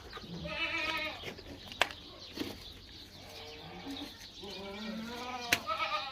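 Domestic goats bleating: one wavering call about half a second in, then more overlapping calls through the second half, with two sharp clicks.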